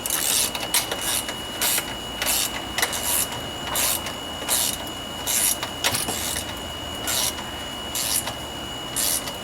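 Screw being run in and tightened with a hand tool after its thread has caught: a series of short rasping strokes, roughly one a second.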